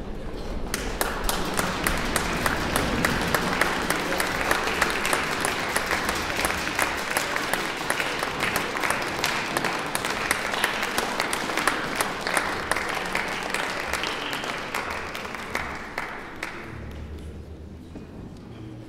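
Audience applauding in a large concert hall. The applause starts about a second in and dies away near the end.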